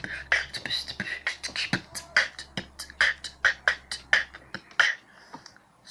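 Beatboxing: a fast rhythm of percussive mouth sounds, with kick, hissing hi-hat and snare-like strokes, stopping about a second before the end.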